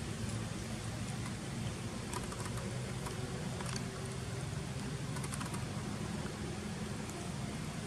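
Steady background hiss with a low hum, and a few faint clicks near the middle.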